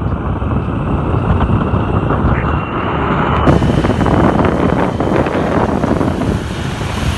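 Moving motorcycle: wind buffeting the phone's microphone over the engine and road noise.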